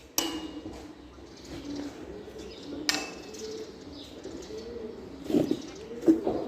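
Low, repeated bird calls, each rising and falling in pitch, with a sharp click just after the start and another about three seconds in.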